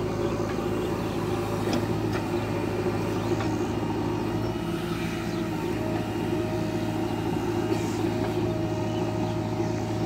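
JCB backhoe loader's diesel engine running steadily under load while the backhoe arm digs and lifts soil, with a few faint knocks.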